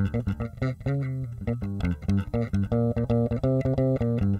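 Warwick Rockbass Corvette Basic short-scale four-string electric bass played fingerstyle: a quick, continuous line of plucked notes. Both pickups are blended evenly and the treble EQ is boosted above centre.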